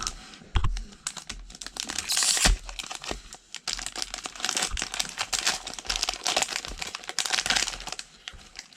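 Foil trading-card pack being torn open and crinkled by hand, with the cards slid out and handled: a steady run of crackling and rustling, with a louder tear about two seconds in and a few knocks.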